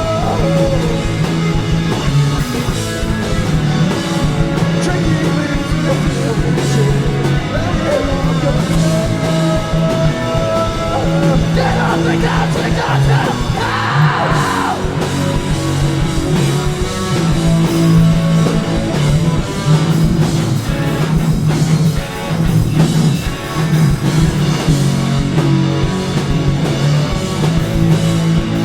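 A rock band playing live, with guitar, bass and drums and a sung vocal.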